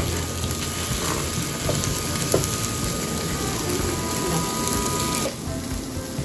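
Pieces of raw eel sizzling on a hot tabletop grill plate, a steady hiss that drops away sharply about five seconds in.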